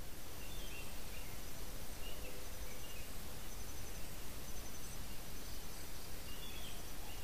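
Outdoor ambience: a steady rushing background noise with a low rumble, a few short bird chirps scattered through it, and a faint high, pulsing insect trill.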